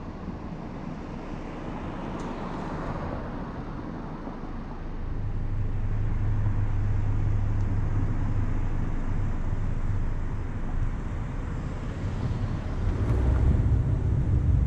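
A car driving, its road and engine noise a steady low hum under a rushing haze, growing louder about five seconds in and again near the end.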